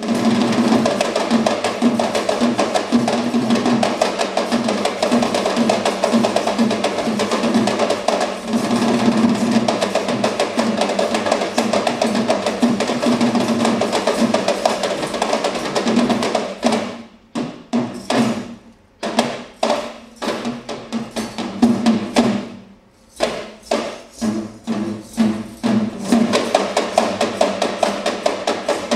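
Two Sri Lankan double-headed drums, slung at the waist and played by hand, drumming a fast, dense rhythm. Past the middle the drumming breaks into separate strokes with short pauses for several seconds, then returns to the dense rhythm near the end.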